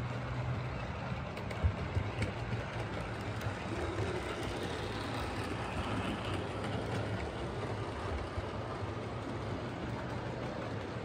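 00 gauge model trains running on a layout: a steady low hum with the rolling rattle of a model steam locomotive and its coaches passing close by from about four seconds in. A couple of light clicks come about two seconds in.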